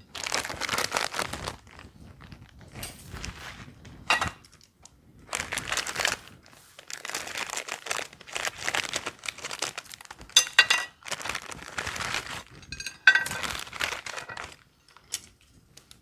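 Plastic packaging crinkling and being torn in irregular bursts while it is handled, with a few small clinks.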